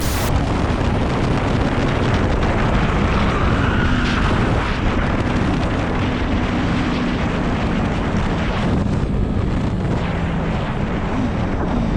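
Motorcycle riding at speed, its engine mostly buried under heavy wind noise on the microphone.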